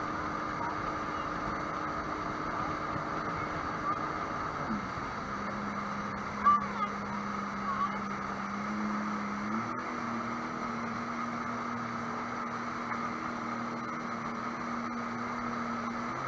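Sea-Doo boat's engine running underway over steady wind and water rush. The engine note drops about five seconds in and rises a little just before ten seconds in. There is a brief louder sound near the middle.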